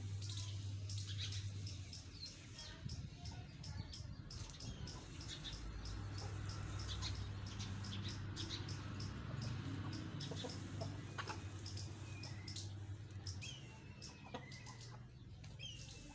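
Domestic chickens, a rooster and hens, clucking softly while foraging, with many small sharp clicks throughout. A low steady hum sits underneath and stops a few seconds before the end.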